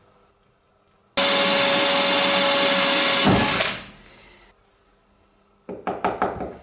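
A small power tool working on metal runs at a steady pitch for about two seconds, then winds down and stops. Near the end come a few short scraping strokes.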